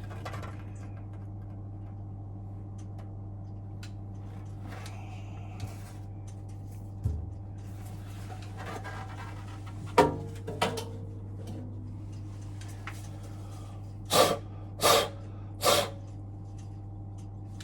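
A person blowing three short, strong puffs of breath, about a second apart, near the end. A couple of light knocks sound in the middle, over a steady low hum.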